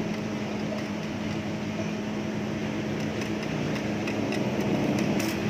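Stick-welding arc from a repaired Rilon ARC 120A IGBT inverter welder burning a 2.6 mm electrode, a steady sizzle with sharp crackles that come more often in the second half, over a steady low hum. The arc strikes and holds normally: the sign that the welder works again after its IGBTs and PWM circuit were repaired.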